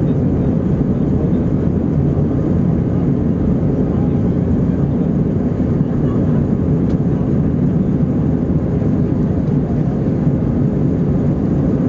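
Steady cabin noise inside an Airbus A321-231 in flight: the rumble of its IAE V2500 turbofans mixed with airflow, an even low drone with no changes.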